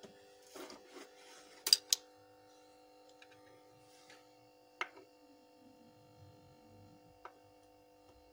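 Small objects handled on a wooden workbench: a short rustle, then a sharp pair of clicks about two seconds in and single clicks near five and seven seconds, as tools are put down and a charger circuit board is picked up and connected. A faint steady hum runs underneath.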